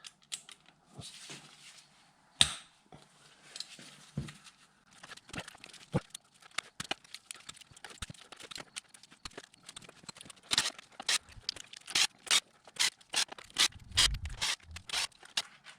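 Hand socket ratchet clicking and metal tools knocking as engine cylinder head bolts are slackened one after another. In the last few seconds there is a run of evenly spaced sharp clicks, about two to three a second.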